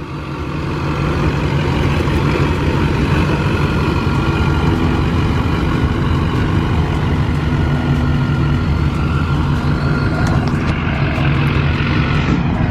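Duramax diesel pickup truck engine running as the truck drives. Its sound swells over the first second and then holds steady.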